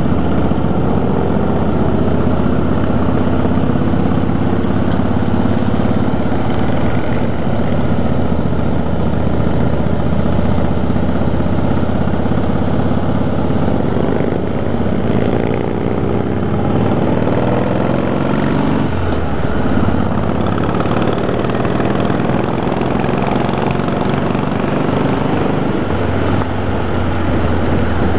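Cruiser motorcycle's V-twin engine running at road speed, heard from the rider's seat with wind noise over the microphone. The engine note rises and falls with the throttle and dips about two-thirds of the way through as the rider eases off.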